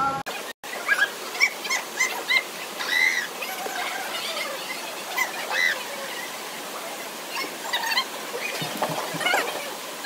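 Steady rush of falling water from a waterfall, with many short high chirping calls scattered over it. The sound drops out briefly just after the start.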